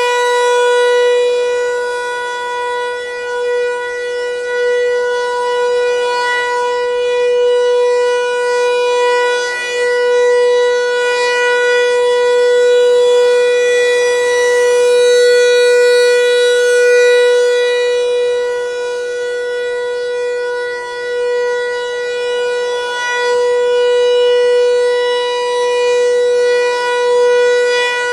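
ASC T-128 outdoor warning siren sounding its steady alert tone for a tornado warning. It holds one unchanging pitch, and the level swells and fades every several seconds as the rotating horn sweeps past.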